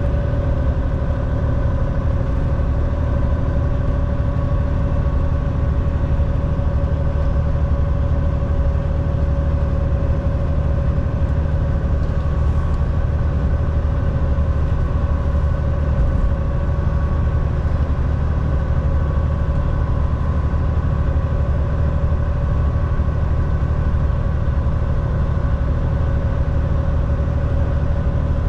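Semi truck's diesel engine running with a steady low drone, heard from inside the cab, with a constant mid-pitched whine over it.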